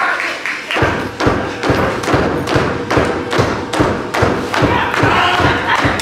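A steady run of heavy, evenly spaced thumps, about two and a half a second, starting about a second in.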